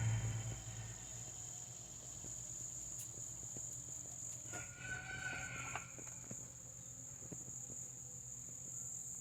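Steady high-pitched chorus of insects, with a low steady hum beneath it and a brief faint tone about halfway through.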